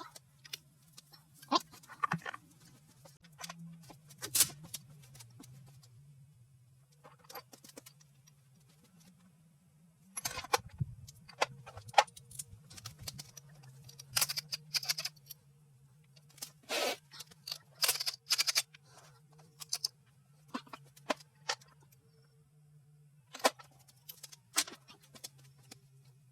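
Metal hand tools and loose engine parts clinking and clanking during engine disassembly: scattered knocks and jingling clinks with a few quiet pauses, over a steady low hum.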